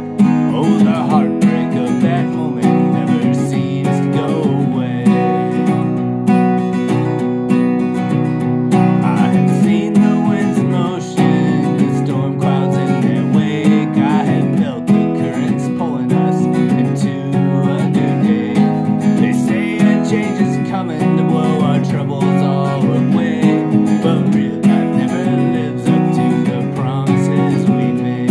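Acoustic guitar strummed steadily with a capo on the neck, with a man singing over it at times.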